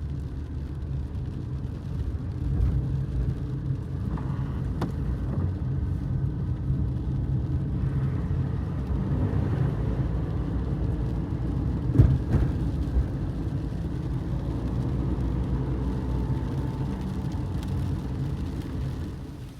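A vehicle engine running steadily with a low rumble, and one sharp knock about twelve seconds in.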